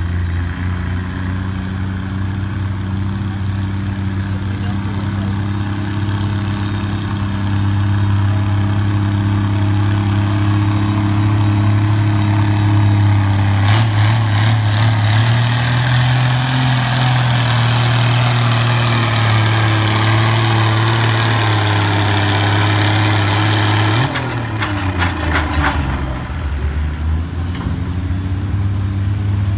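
Oliver 88 tractor engine running hard under load, pulling a weight-transfer sled. It gets louder as the rig comes closer, its pitch climbs gradually, and about 24 seconds in the note drops and falls away.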